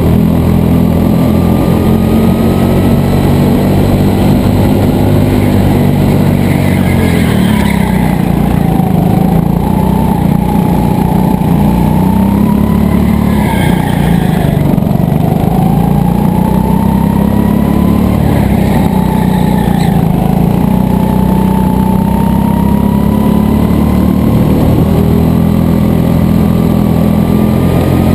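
Go-kart engine heard from the driver's seat at racing speed, loud and continuous. Its pitch climbs slowly on the straights and drops briefly several times as the kart slows for corners.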